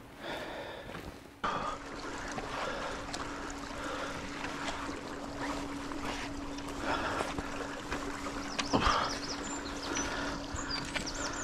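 Handling noise of a magnet-fishing rope being hauled up over a stone bridge parapet, with scrapes and clicks and a solid knock about three-quarters of the way through as the magnet and its catch come up against the stone. A steady low hum runs underneath.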